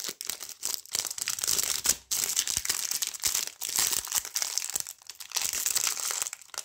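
Wrappers of trading-card packs crinkling and tearing as they are ripped open and handled: a dense, crackly rustle with a couple of brief pauses.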